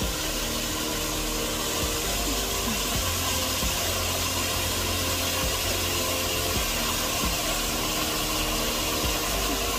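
A small waterfall pouring over rocks into a pool: a steady, unbroken rush and splash of falling water.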